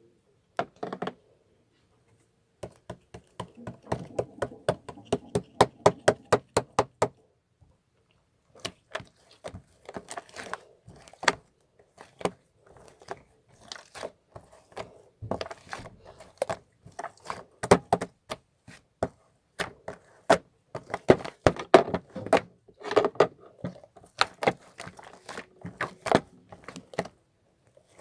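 Irregular runs of sharp taps and clicks from hard objects, several a second, with short pauses between runs.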